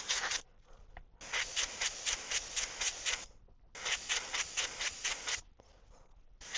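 Airbrush hissing as fluorescent green paint is sprayed along a lure's lateral line, in three short passes with a quick flutter to the hiss and brief pauses between them.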